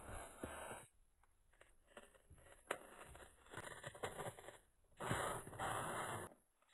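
Faint rustling and scraping of paper being handled, in short bursts with small clicks between them.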